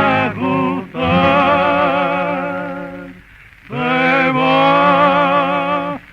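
Two male singers in duet, with guitar accompaniment, on an old 78 rpm shellac record. They hold two long notes with vibrato, with a brief break about three seconds in.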